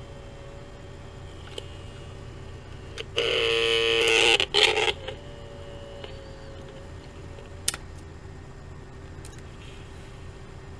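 Sony TC-55 cassette recorder trying to run after its power check: a steady faint hum with a few sharp clicks, and about three seconds in a loud buzzing tone with many overtones from the unit, in two parts lasting about two seconds. This is the kind of feedback noise that the repairer can't trace, with the motor not turning.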